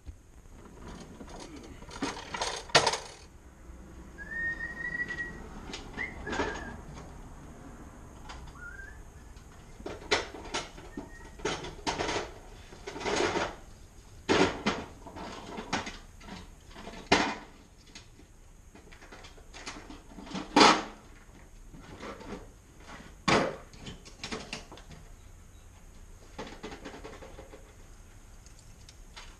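Intermittent metallic clinks and knocks of a socket and extension being worked against metal, every second or two, with a short high whistle about four to six seconds in.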